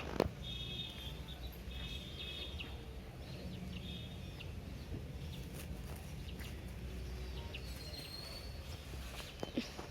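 A bird chirping in three short trilled bursts in the first few seconds, over a steady low rumble.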